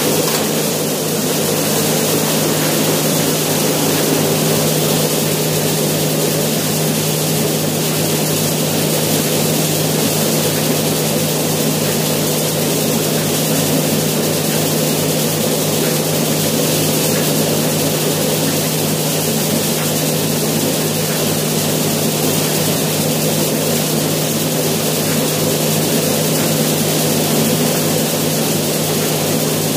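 Yanmar RHS40DL brown rice husker running steadily: an even machine hum with a wide hiss over it, unchanging throughout.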